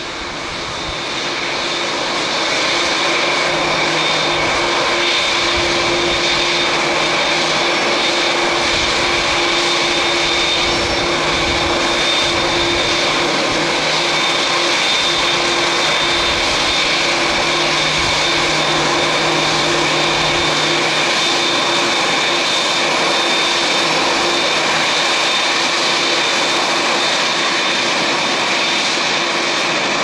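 Boeing 787's Rolls-Royce Trent 1000 turbofan engines at taxi power: a steady jet whine with a high, even whistle over a dense roar, swelling up over the first couple of seconds and then holding level.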